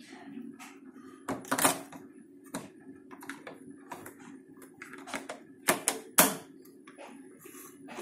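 Hard plastic clicks and knocks as the parts of a Hotpoint dishwasher filter, a plastic cup and a fine-mesh insert, are handled, fitted together and set down on the worktop. About a dozen sharp clicks come at irregular intervals, over a steady low hum.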